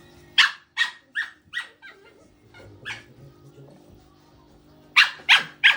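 Puppy yipping during play in short, high barks: a quick run of about five yips early on, a single one about three seconds in, then three loud yips in close succession near the end.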